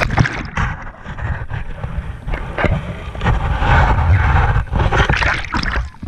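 Sea water splashing over an action camera as it plunges under the surface, then muffled underwater rushing and gurgling against the housing. Splashing crackles again near the end as it breaks back out into the air.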